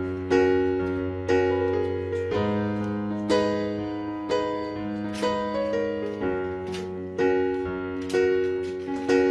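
Slow background piano music: sustained chords, with a new note or chord struck about once a second and fading away.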